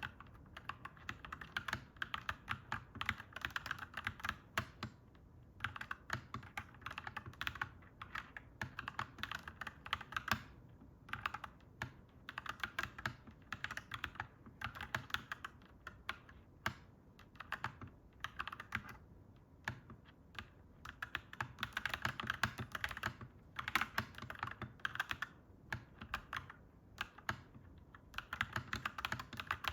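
Clacky mechanical keyboard being typed on, in runs of rapid keystrokes a few seconds long broken by short pauses.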